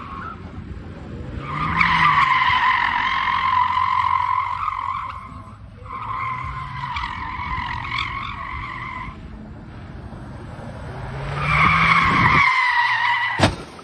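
SUV's tyres squealing in three long, steady stretches as it spins circles on parking-lot pavement.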